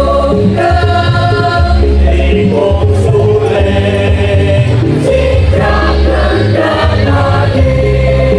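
A choir singing a Javanese song in sustained chords over an instrumental accompaniment with a moving bass line.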